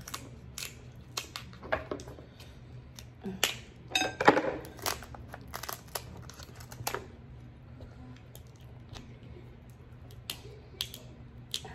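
Alaskan king crab shell being cut with kitchen shears and cracked open by hand: an irregular string of sharp snips, cracks and clicks, the loudest cluster about four seconds in.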